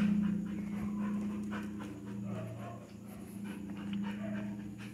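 A dog panting, over a steady low hum.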